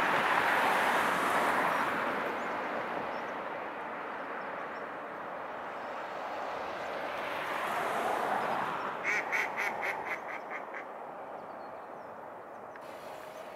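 A duck calling a quick run of about eight quacks, starting about nine seconds in, over a rushing background hiss that swells twice and fades.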